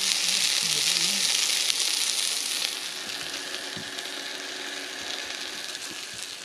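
Sausages sizzling on a hot grill plate: a steady frying hiss that drops noticeably in level about two and a half seconds in, then carries on quieter.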